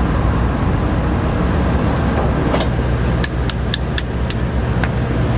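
A steady low hum of running machinery. About three seconds in it is overlaid by a quick run of about five light, sharp metallic clicks, with a couple more scattered around them.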